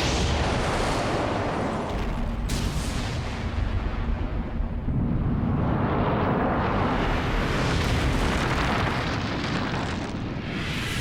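Sustained rumbling, explosion-like sound effects from an animated action scene, swelling and easing in waves, with a sudden new surge about two and a half seconds in.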